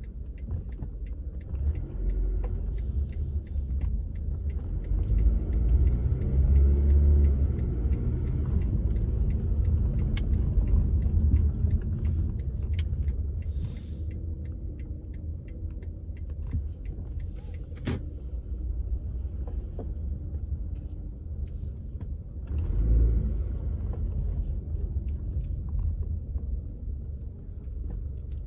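Low rumble of a car's engine and tyres heard from inside the cabin, rising and falling as the car creeps along in slow traffic, loudest for several seconds in the first half and again briefly later on.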